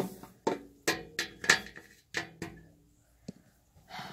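Hard plastic toy figures and props being handled and set down, a string of sharp clicks and knocks, some with a short ringing tone, most of them in the first two and a half seconds and then only a few.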